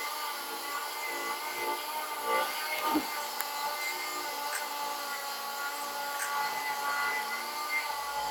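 A small motor running steadily with a high whine made of several tones, and a single sharp knock about three seconds in.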